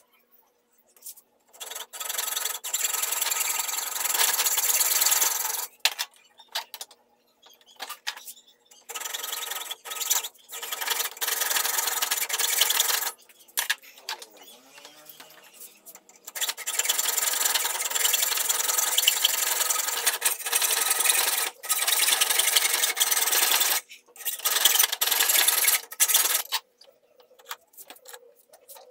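Hand hacksaw cutting through a metal pipe, a rasping stroke-by-stroke sawing in about four bouts with short pauses between, stopping near the end.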